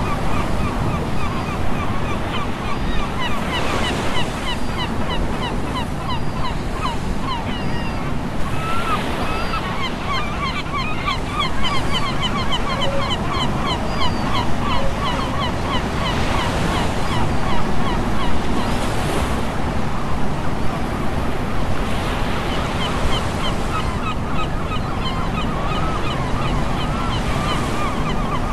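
Ocean surf washing ashore, with wind rumbling on the microphone, under a flock of seabirds calling: many short, quickly repeated chirping calls, thickest through the middle of the stretch.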